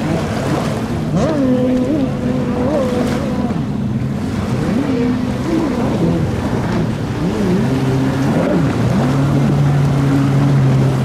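Several stand-up jet ski engines running at once, their pitch rising and falling as the riders throttle through turns, over a steady hiss of wind and water.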